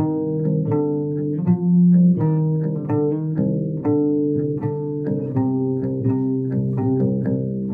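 Electric bass and electric guitar playing a song together, a steady run of plucked notes a few per second.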